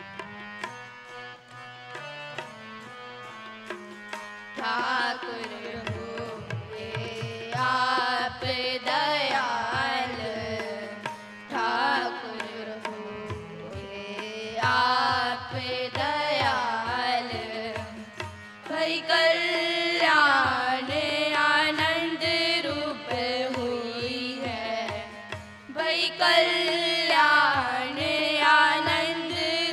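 Sikh shabad kirtan: harmoniums playing a steady melody over a tabla beat, joined about four seconds in by children's voices singing the shabad, which carry on to the end.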